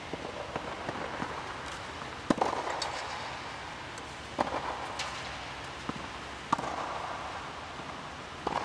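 Tennis ball struck by rackets in a rally, with lighter ball bounces on clay between. The sharp pops come about every two seconds and echo in an inflated air dome.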